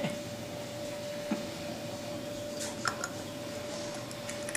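A few faint, short clicks of a toddler biting and crunching hard rock candy, over a steady faint hum.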